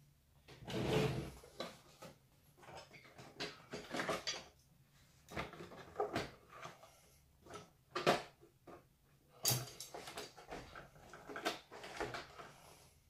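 Plastic body shell of an RC crawler being handled and set down onto its chassis: a string of light plastic clicks, knocks and rustles, with a louder scrape about a second in.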